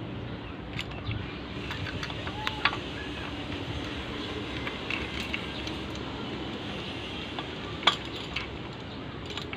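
Light metallic clinks and taps of hand tools and engine parts being handled, with a sharp click about a quarter of the way in and a louder one near the end, over steady background noise.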